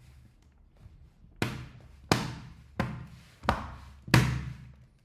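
Laptop back panel being pressed into place on the chassis: five sharp snaps or knocks, evenly spaced about two-thirds of a second apart, each dying away quickly.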